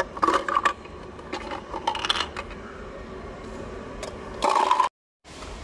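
Small hard plastic toy pieces clattering and rattling in short bursts as a toy food container is shaken and knocked on a play table. The sound cuts out abruptly near the end.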